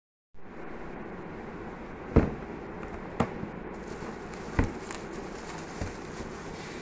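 Cardboard shoe box being handled and opened: four sharp knocks and taps, the loudest about two seconds in, as the lid comes off and the box is set down, then plastic wrap crinkling as a loafer is pulled out, over a steady background hiss.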